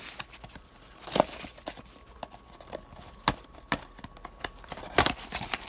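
A parts box and its packaging being handled and opened: a scattering of light taps, clicks and knocks at uneven intervals, with a few sharper ones about a second in, past the middle and near the end.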